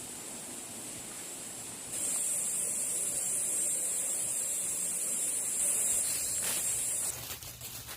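A steady, high-pitched insect drone that gets louder about two seconds in and stops abruptly about a second before the end, followed by a few short clicks.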